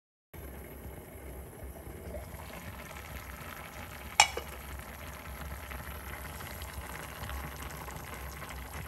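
Spicy broth at a rolling boil in an aluminium pot on the stove, bubbling steadily. A single sharp click sounds about four seconds in.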